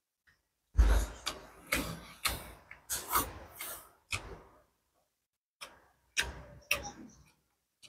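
Close-up chewing of crispy fried salted fish: a quick run of short crunches in the first few seconds, then a pause, then a few more crunches.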